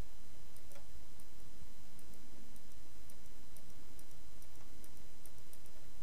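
Steady hiss and electrical hum of the recording microphone, with faint short ticks recurring about two to three times a second.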